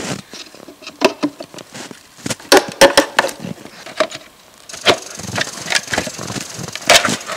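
Wooden marten trap box being wrenched off a tree trunk: a run of sharp wooden knocks, cracks and creaks as it is pried free, the loudest cracks a little before halfway.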